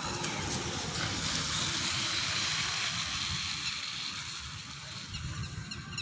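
Steady rain falling, an even hiss, with a low rumble underneath.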